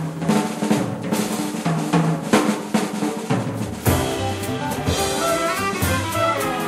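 Jazz drum kit playing a busy snare-and-cymbal passage over walking bass in a live big band. The horns come back in about four seconds in.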